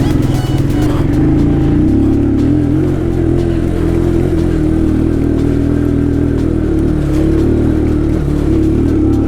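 Motorcycle engine running steadily while riding a dirt trail, its pitch shifting slightly about a second in and then holding fairly even.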